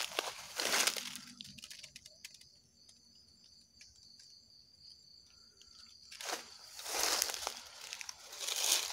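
Footsteps crunching and rustling through dry fallen leaves and grass, pausing midway, when a faint steady insect buzz is heard before the crunching starts again.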